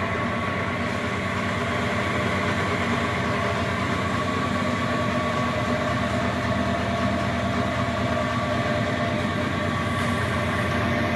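Large wood lathe running steadily under power, its motor and spindle making an even mechanical hum with a few steady tones.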